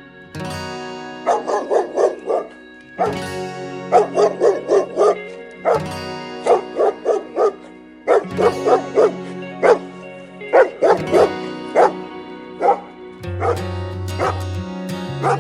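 A dog barking in quick runs of short barks, several groups in a row, over background music with sustained notes.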